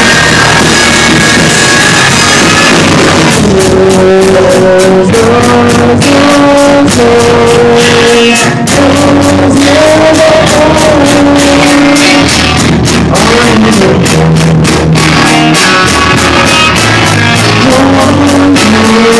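Live rock band playing loud: electric guitar and drum kit, with a melody of held notes stepping up and down. Steady drum hits set in about three and a half seconds in.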